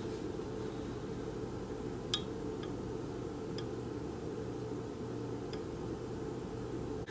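Steady low hum of room tone with a few faint, light ticks of a metal spoon touching the glass neck of a bottle as powdered barley grass juice is tipped in.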